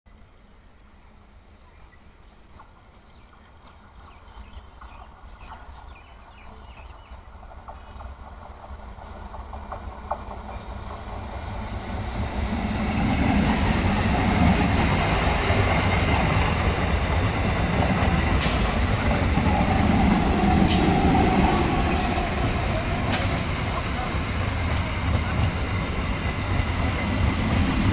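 Old electric multiple unit (EMU) local train approaching and passing close by. It is faint at first with scattered sharp clicks, then grows over about twelve seconds into a loud, steady rumble of wheels on rails, broken by a few sharp clacks.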